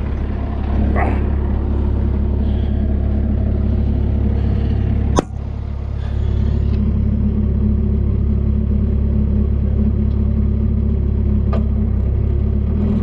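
Bobcat skid-steer loader engine running steadily, with one sharp clank about five seconds in and a fainter knock near the end.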